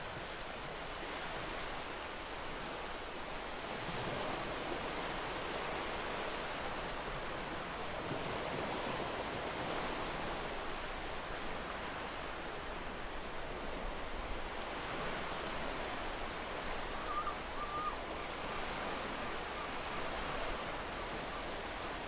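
Small waves breaking and washing up on a sandy beach: a steady rushing hiss of surf that swells and eases slightly every few seconds as each wave comes in.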